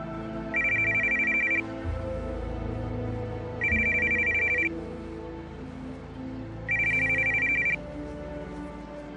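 Mobile phone ringing with an incoming call: a shrill electronic ring about a second long, sounding three times about three seconds apart, over background music.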